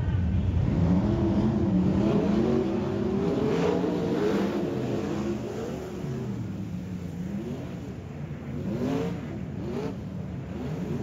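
Several race car engines revving and passing, their pitch rising and falling as they go around the track; loudest in the first half, then easing off somewhat.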